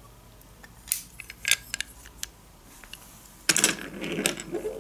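Toy train vehicles (a truck and its flatbed wagon) being handled and set down on a wooden floor: a few sharp clicks and knocks, then a busier clatter and rustle starting a little past halfway.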